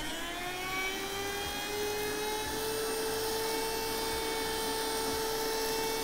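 Gigi-Store cordless handheld mini vacuum running, sucking flake salt off a desktop: a steady high-pitched motor whine over airflow hiss. Its pitch rises slightly over the first two seconds as the motor comes up to speed, then holds steady.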